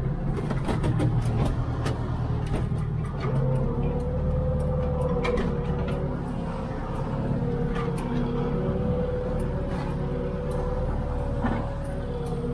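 International 1455 tractor's diesel engine running steadily under load, with a wavering whine joining in about three seconds in and occasional knocks and rattles.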